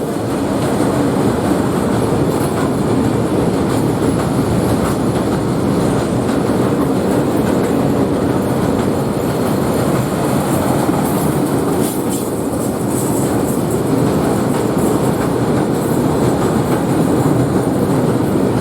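A train passing close by: the steady, loud running noise of its wheels on the rails.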